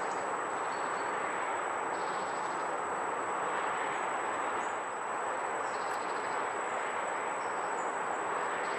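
Steady, even rush of distant road traffic, with no single vehicle standing out.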